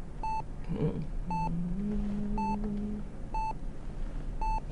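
Bedside patient monitor beeping steadily, one short high beep about every second. About a second and a half in, a low hummed note is held for a second and a half under the beeps.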